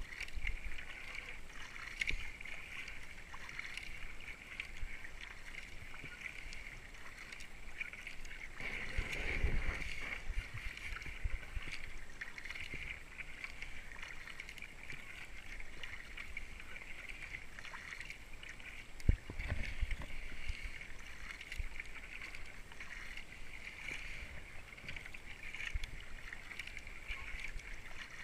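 Steady paddling in a racing kayak: the wing paddle's blades dipping and splashing in turn, with water rushing along the hull. Two brief low rumbles, about nine and nineteen seconds in, the second starting with a sharp knock.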